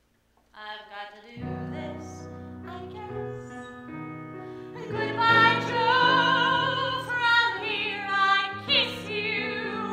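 A woman singing a show tune with piano accompaniment. The piano comes in about half a second in after a brief hush, and her voice enters louder about five seconds in, with a wide vibrato on held notes.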